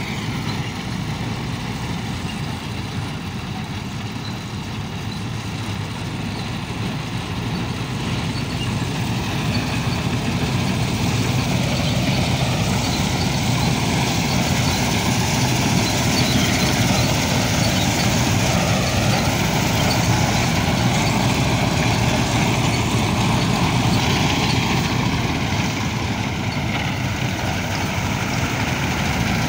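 Vintage Massey-Harris self-propelled combine harvester running while it cuts wheat: its engine and threshing machinery make a steady machine noise that grows louder as it draws closer.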